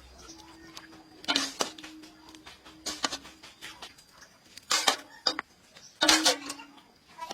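Several sharp knocks and clatters, a few seconds apart, over a low steady tone that drops out midway and returns briefly near the end.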